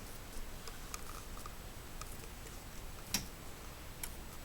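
Faint, scattered light clicks and ticks over low background noise, with one sharper click about three seconds in.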